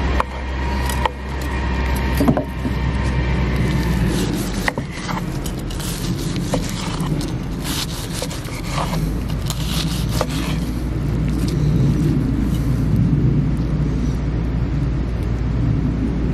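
Chef's knife sawing through a grilled tomahawk steak and cutting along its bone. The blade clicks and scrapes against the wooden cutting board every second or two, over a steady low rumble.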